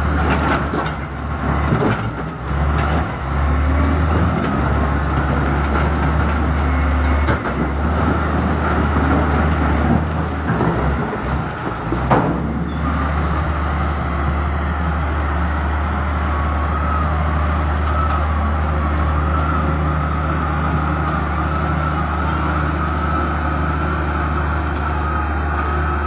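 Wheel loader's diesel engine running steadily under load as the machine works through a rocky riverbed, with a few knocks in the first seconds and a sharp clank about twelve seconds in from the bucket and stones.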